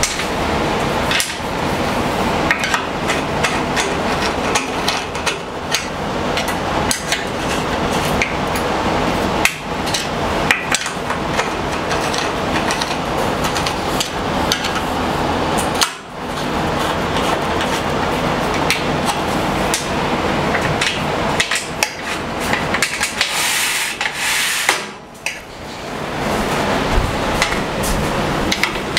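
Many sharp knocks and taps, like light hammering, on the metal parts of an Incra fence system as they are handled and fitted, over a continuous noisy background that drops out briefly twice.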